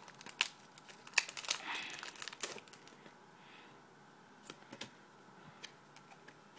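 Foil booster pack wrapper crinkling as it is handled, busy for the first couple of seconds and then dying down to a few scattered crackles.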